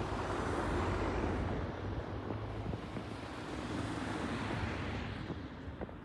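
A car driving past on a snow-covered road, its tyre and road noise swelling to a peak about a second in, then a second, smaller swell a few seconds later as more traffic goes by, fading near the end.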